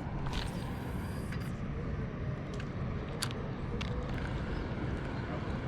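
Steady rushing water of a spillway, with a few faint clicks and a brief high hiss about half a second in.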